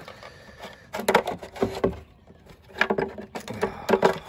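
Plastic clicking and rattling in two bursts as a replacement bulb holder is pushed and twisted into the socket of a Ford AU Falcon tail light housing.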